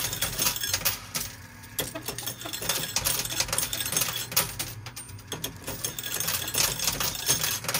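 Coins clicking and clinking in quick succession in a coin pusher machine as quarters are fed in and drop onto the playfield.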